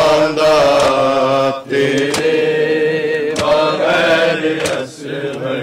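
Group of men chanting a Punjabi noha together in long drawn-out notes, with a few sharp slaps of hands striking chests in matam.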